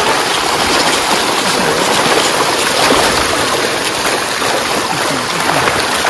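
Water of a mountain waterfall stream rushing over rocks, a loud, steady rush.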